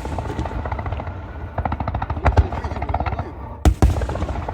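Aerial fireworks going off in a rapid, dense string of bangs and crackles, with a heavy boom a little before the end.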